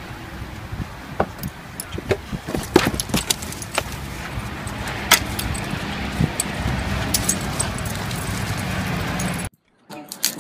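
Metal dog tags and leash clip jingling and clinking in quick, irregular clicks as a Labrador moves about, over a steady low rumble. The sound cuts off abruptly near the end.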